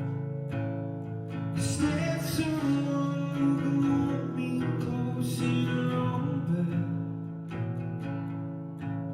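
Live solo song performance: strummed guitar chords, with a voice singing over them from about a second and a half in until about seven seconds.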